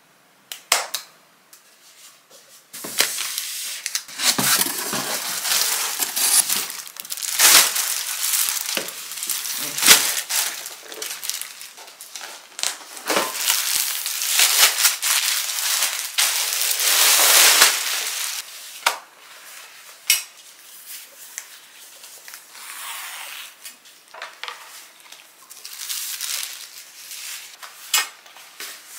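Clear plastic packaging bag crinkling and crackling as a garment is handled and pulled out of it, loudest in the first half. Softer, scattered rustling follows toward the end.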